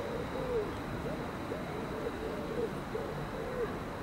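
Pigeons cooing: a continuous run of low, arching coos, about two or three a second, over a steady low background hum.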